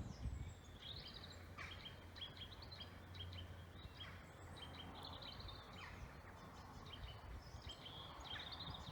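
Faint songbirds chirping and singing, with many short, high, repeated notes and a few falling ones, over a steady low rumble.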